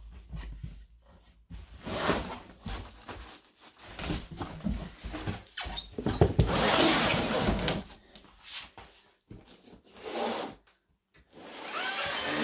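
Loose-fill foam packing peanuts rustling as a hand digs through them, then cardboard cartons scraping and rubbing as they are pulled out and handled. The longest and loudest stretch of scraping comes about six to eight seconds in, with another near the end.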